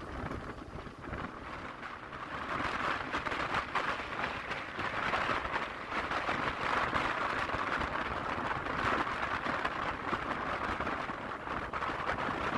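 Steady rushing noise of a moving train heard from on board, with many fine irregular rattling clicks, growing a little louder about two seconds in.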